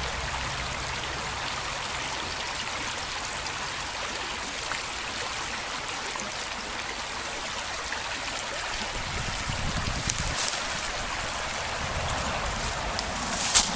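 Small mountain brook flowing and trickling over rocks, a steady rushing splash. A sharp click near the end.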